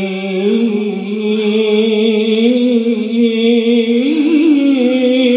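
A man's unaccompanied voice singing an Arabic devotional nasheed, drawing out long ornamented notes. The pitch steps up about half a second in and climbs again near four seconds before settling.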